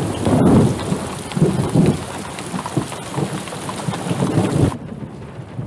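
Heavy rain pouring, with low rumbles of thunder rising and falling underneath. The rain's hiss falls away abruptly near the end, leaving a much quieter sound.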